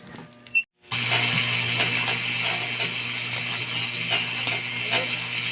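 Electric arc welder striking an arc about a second in, then a steady crackling burn over a constant low hum. The current is set low and is called weak ('mahina').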